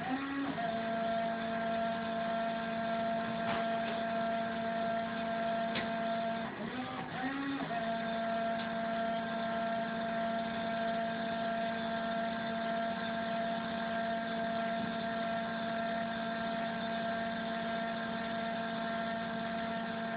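Zund UVjet 215 Plus flatbed UV printer running with a steady hum. Twice its tone breaks into a brief wobbling stutter, just after the start and again about seven seconds in: the indexing 'hiccup' the owner is asking about.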